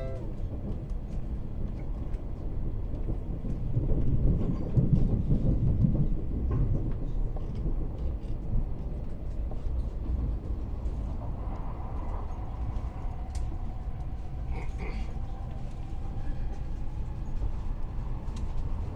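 Passenger train running: a steady low rumble and rail noise that swells about four to six seconds in, with a faint whine in the later part.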